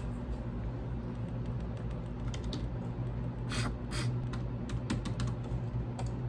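Irregular light clicks and taps, several in quick succession between about two and six seconds in, over a steady low hum.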